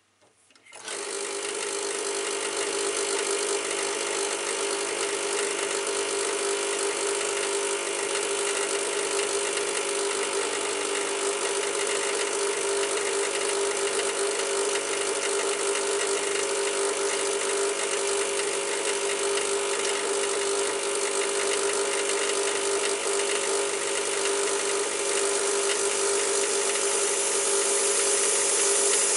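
Bezzera Unica espresso machine's vibratory pump switching on about a second in and buzzing steadily as it pushes water through the flow-control device on the group, growing a little louder near the end.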